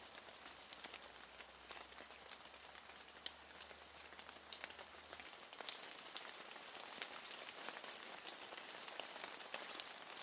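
Steady rain with many separate drops ticking.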